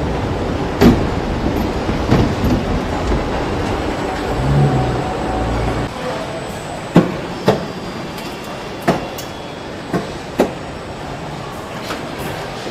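Car assembly plant floor noise. A steady machinery rumble with a low hum gives way, after a cut about six seconds in, to quieter line background broken by about six sharp knocks and clanks at irregular intervals.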